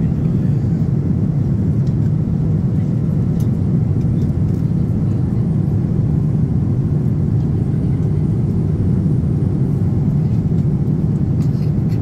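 Steady cabin noise of a Boeing 787-10 airliner in cruise: an even low rumble of airflow and engines, with a few faint clicks.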